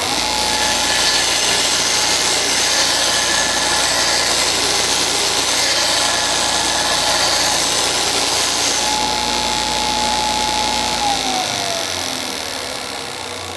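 Porter-Cable stationary belt and disc sander starting up and running loud, grinding the bevel of a steel axe head on the belt with a harsh hiss as sparks fly. About eleven seconds in it is switched off and its whine falls in pitch as the motor spins down.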